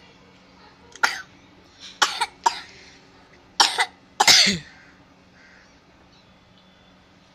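A person coughing: a fit of about seven short coughs in three clusters, the last one longer and the loudest.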